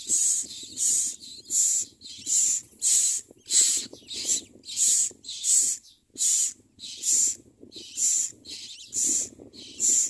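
Common myna nestlings giving high, hissing begging calls in a steady series, about one and a half calls a second, as they gape for food.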